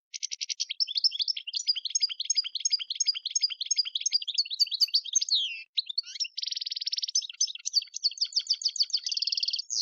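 European goldfinch singing a fast, twittering song of varied chirps, with buzzy trills about six and a half seconds in and again near the end, and a brief break in the middle.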